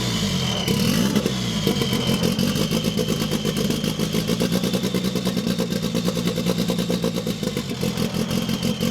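Car engine revved in short blips for about the first second and a half, then idling steadily with a fast, even pulse.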